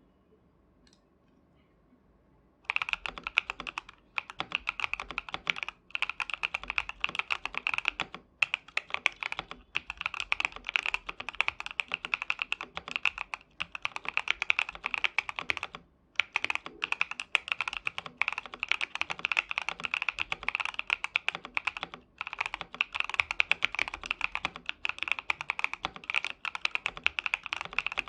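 Fast, continuous typing on a KBDFans KBD67 Lite mechanical keyboard with factory-lubed Xinmeng Cuibo tactile switches in a POM plate, foam-dampened and tape-modded, under Earl Grey keycaps. The typing starts after about three seconds of near quiet and runs in long bursts with a few brief pauses.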